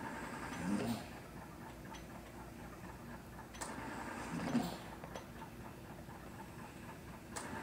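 Home mechanical ventilator cycling through breaths: a sharp click followed by a short rush of air, repeating evenly about every three and a half to four seconds, with a third click near the end.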